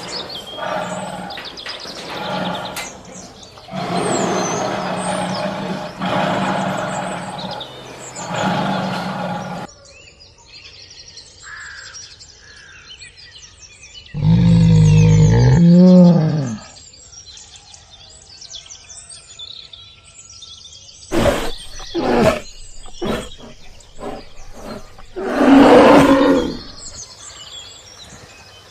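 A large wild animal roaring twice, with deep growling roars of about two seconds each, the first about fourteen seconds in and the second near the end. Birds chirp faintly between them, and there is a run of sharp clicks shortly before the second roar. For the first ten seconds a steady background sound with a low hum runs, then cuts off.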